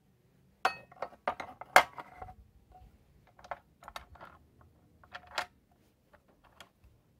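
A rusty steel bar clinking and knocking against the cut-off grinder's metal base and clamp jaw as it is laid in and positioned: a quick run of sharp metallic clinks about a second in, scattered lighter taps, then another couple of clinks about five seconds in.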